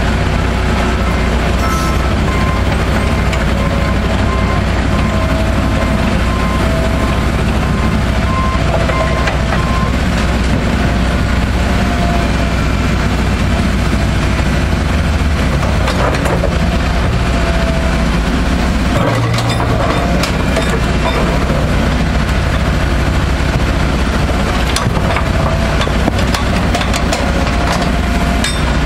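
Caterpillar 325C excavator's diesel engine running steadily and loud. A regular beeping alarm sounds over the first third, and a few sharp metallic knocks come later.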